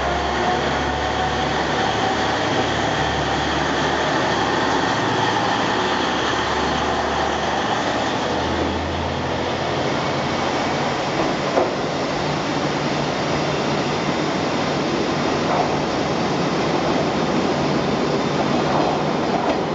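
JR East KiHa 40 series diesel railcar pulling away, its engine running and wheels on the rails. A deep rumble eases off about halfway through as the train moves away. There is a single sharp knock a little past the middle.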